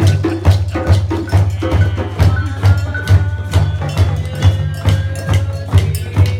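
Music with a steady, bass-heavy beat of about two beats a second, with sustained melody tones over it.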